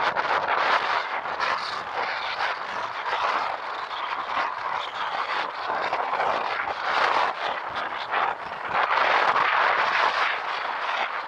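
Rush of wind and road noise heard from a moving motorcycle, a steady roar that swells and eases.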